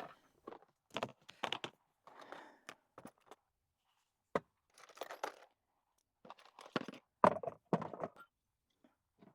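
Scattered knocks, clicks and brief rustles of gear being handled and stowed, with one sharp knock about four and a half seconds in.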